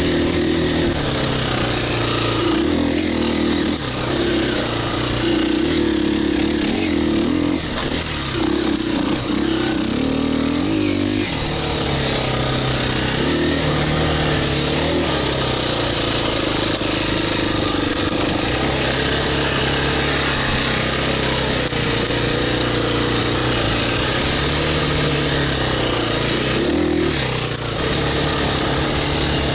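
KTM 350 EXC-F's single-cylinder four-stroke engine being ridden on a trail, its pitch rising and falling with the throttle and changing in steps.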